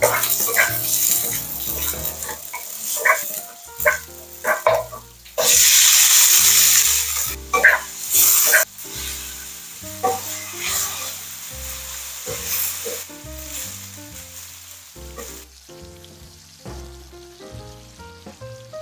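Food sizzling in hot oil in a wok while being stirred with a wooden spatula, with scattered scraping clicks. About five seconds in, the sizzle turns much louder for about two seconds, then settles to a softer steady sizzle.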